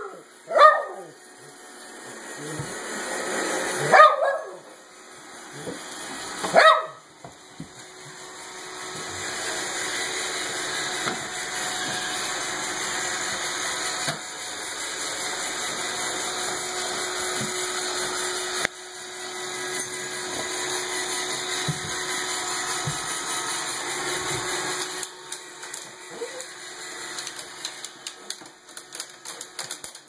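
A small dog barks sharply several times in the first seven seconds at a Roomba robot vacuum. The Roomba's steady whir of motor and brushes then fills most of the rest, with light clicking near the end.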